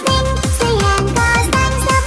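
Electronic dance music with a fast, steady beat of falling bass drum strokes and a synth melody.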